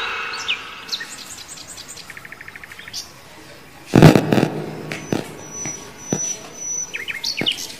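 Young kittens mewing with short, high, thin calls, clearest about seven seconds in, after a sudden louder sound at about four seconds. Faint bird-like chirps and a quick trill come before it.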